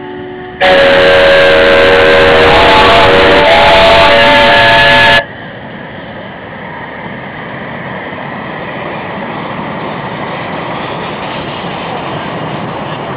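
Steam whistle on a 15-inch-gauge live-steam locomotive blown hard for about four and a half seconds, several notes sounding at once over a rush of steam, then cut off abruptly. Afterwards the locomotive's steady running noise grows slowly louder as it draws closer.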